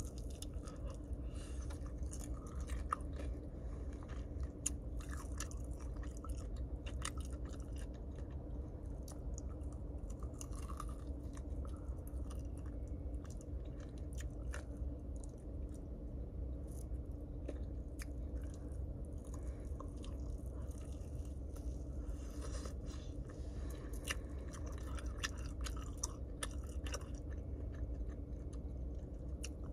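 A person eating chicken close to the microphone: steady chewing with scattered crunchy bites throughout, over a steady low hum.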